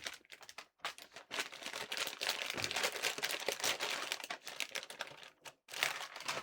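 Crinkling, rustling handling noise with many small clicks, dense for about four seconds, then a shorter burst near the end.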